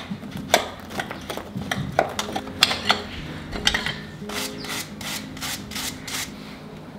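Farrier's hand tools scraping and picking at a shod horse hoof: a string of short, sharp scraping strokes, coming in a quicker regular run of about three a second in the second half. Faint background music underneath.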